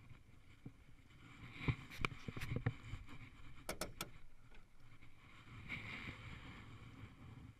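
Knocks and clatter of gear being handled and shifted in a small fishing boat as someone moves about in it: a cluster of knocks about two seconds in and three quick sharp clicks near four seconds in, over a low rumble.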